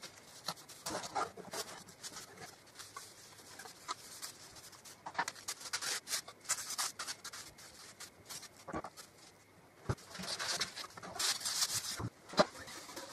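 Wooden sewing machine case parts being handled and rubbed, sped up: quick scrapes, rubbing hisses and light clicks of wood and fittings, with a couple of sharper knocks, the loudest near the end.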